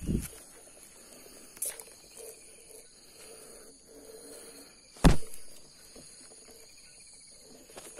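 A single sharp shot from an air rifle about five seconds in, the loudest sound here, over a steady high buzz of insects. A dull knock comes at the very start.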